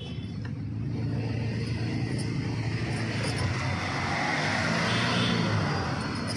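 Engine rumble of a passing motor vehicle, growing to its loudest about five seconds in and easing off near the end.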